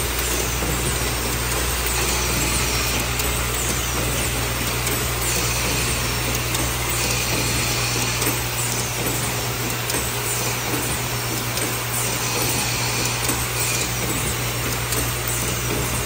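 Automated permanent-marker assembly machine running: a steady low hum under a continuous mechanical clatter, with light ticks repeating through it.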